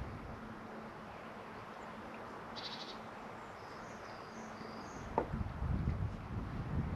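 Faint outdoor background with a short, rapid high trill and a few faint high chirps of small birds. Low rumbling noise and a click start about five seconds in.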